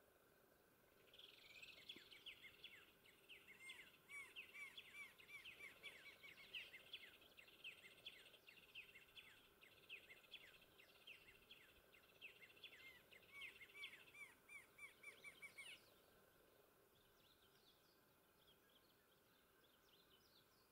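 Rufous-winged antshrike singing: a long series of evenly repeated notes that starts about a second in, runs for some fifteen seconds, and stops abruptly.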